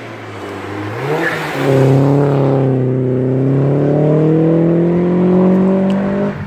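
Mini hillclimb race car accelerating out of a hairpin and pulling away uphill, its engine note climbing steadily in one long pull. Near the end the pitch drops abruptly at a gear change.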